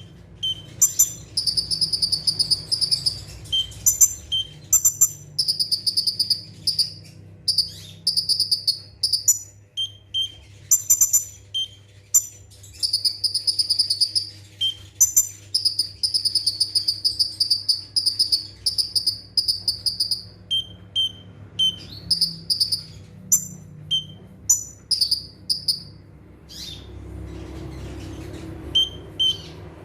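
Kolibri ninja (a sunbird) singing in rapid-fire volleys of very high, fast chirping notes, each burst lasting a second or two and repeating many times, with brief pauses between.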